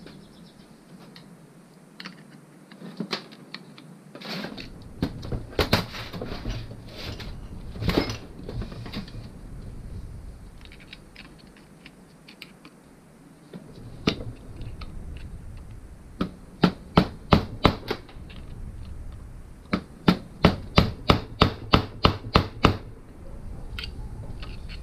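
Hammer blows on a steel tool held against the clutch centre nut, knocking back the bent lock-tab washer so the nut can come off. Scattered taps at first, then four hard strikes and later a quick, even run of about nine strikes, roughly three a second.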